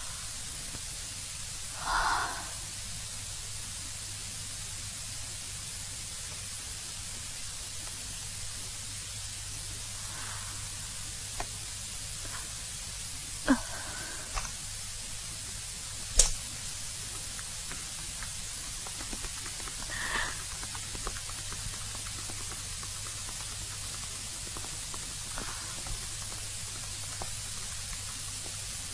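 Steady hiss of an old film soundtrack over a low hum, with a few faint short sounds and a sharp click about sixteen seconds in.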